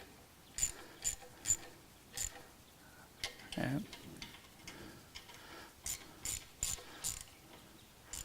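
Ratchet wrench clicking as it snugs up the nuts holding a new sensor on a wood chipper: two runs of sharp clicks, about two a second, with a pause between.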